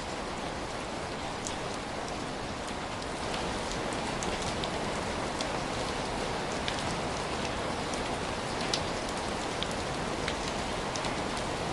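Steady rain falling: an even hiss with scattered sharp ticks of individual drops, growing a little heavier about three seconds in.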